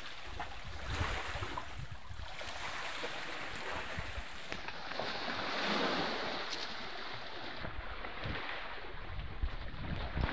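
Sea water washing and lapping against a rocky shore, with wind buffeting the microphone; the wash swells louder about halfway through.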